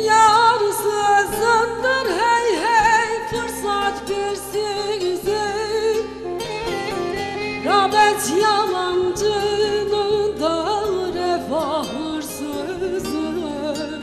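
A woman singing a Turkish folk song in long, wavering, ornamented notes, over bağlama accompaniment.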